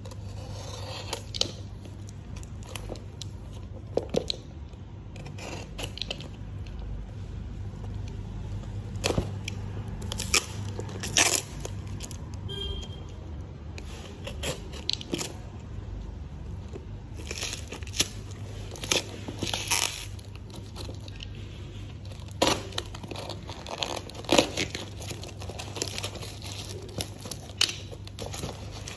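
A plastic-wrapped parcel is being opened by hand. A small knife scrapes and cuts at the packing tape, then tape and plastic wrapping are pulled and torn off in short, irregular rips and crinkles, with cardboard tearing near the end. A steady low hum runs underneath.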